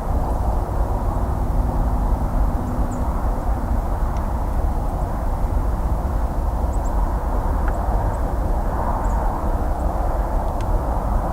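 Distant highway traffic: a steady, even rumble of passing vehicles and tyre noise, heavy in the low end, with a few faint high chirps now and then.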